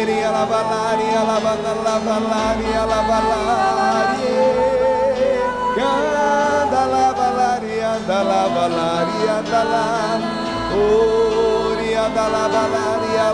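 A congregation singing in tongues, many voices wavering freely in pitch, over sustained backing chords.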